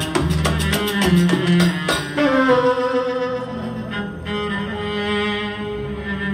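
Live string orchestra with a featured cello. For about the first two seconds it plays a rhythmic, sharply accented passage, then moves into long held, sliding bowed notes.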